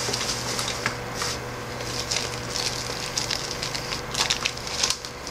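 Irregular rustling and small crackles from hands handling a Ken doll up close, pulling the beanie off its head.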